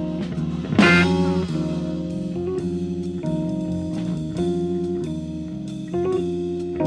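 Jazz-fusion band playing an instrumental passage: guitar chords over bass and drum kit, with a loud accent about a second in.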